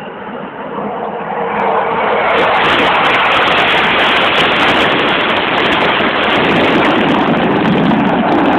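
Aircraft flying past: a loud engine noise builds over the first two seconds, stays steady, and starts to ease near the end, loud enough to distort the recording.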